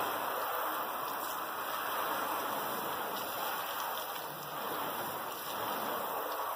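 Garden hose spray nozzle jetting water onto the polished aluminium skin of an Airstream trailer, a steady spray of water splashing on sheet metal as the panel is rinsed off.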